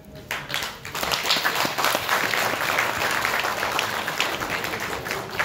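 Crowd applauding: many hands clapping at once, starting about a third of a second in and growing louder about a second in.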